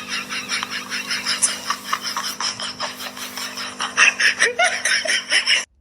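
A person laughing in rapid breathy snickers, about five a second, over a steady background hum. A brief pitched sound comes near the end, then it cuts off suddenly.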